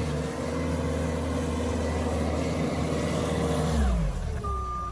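Forklift engine running under load while pushing snow; its revs drop a little before the end, and a reversing alarm starts beeping near the end.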